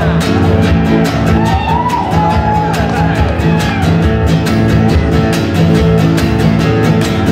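Solo nylon-string classical guitar strummed in a quick, steady rhythm, chords ringing.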